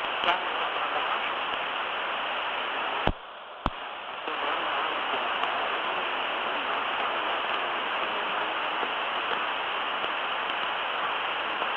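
Steady hiss of cockpit background noise on the Embraer Legacy 600's cockpit voice recorder. Two sharp clicks come about three seconds in, and the hiss drops out briefly between them.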